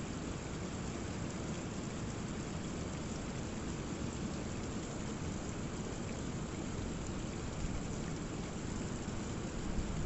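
Rainwater running and splashing down a rock cliff face after heavy rain, over the steady low rumble of a rough sea, which swells a little near the end.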